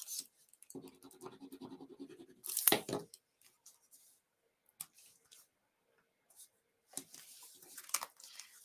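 Paper and card being handled on a wooden tabletop: short rustles and a sharp scrape just under three seconds in, the loudest sound, then a longer rustle near the end as the card is pressed and moved.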